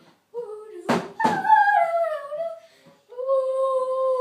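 A girl's voice humming a wordless tune in long held notes that slide from one pitch to the next, in short phrases with gaps between them. Two sharp knocks, like claps, land about a second in.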